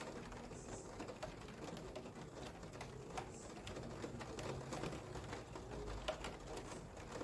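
Rain falling, with scattered drops ticking irregularly on a hard surface over a faint low background hum.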